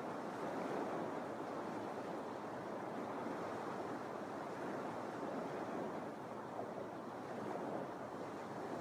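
Small Lake Michigan waves washing onto a sandy beach, a steady rush of surf.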